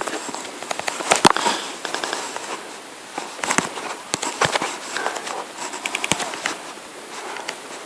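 Irregular sharp clicks and crackling, several a second, over a steady hiss.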